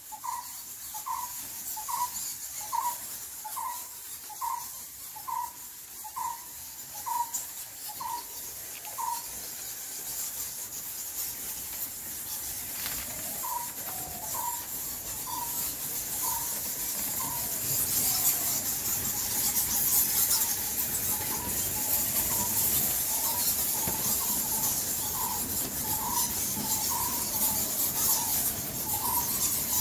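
Large roosting bat colony squeaking and chattering in a cave, a dense high-pitched twitter that grows louder about halfway through. A short call repeats a little over once a second throughout, breaking off for a few seconds before the middle.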